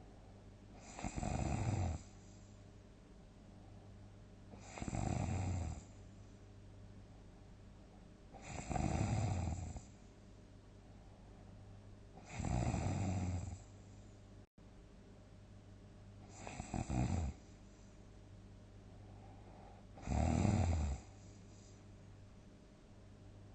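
A sleeping person snoring loudly: six snores at even intervals of about three and a half to four seconds, each lasting about a second, with a steady low hum in between.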